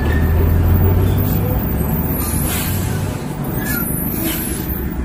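Eicher tractor-trailer LPG tanker passing close by: a low diesel engine drone with tyre and road noise, the drone easing off after about three seconds as the cab moves past and the trailer wheels roll by.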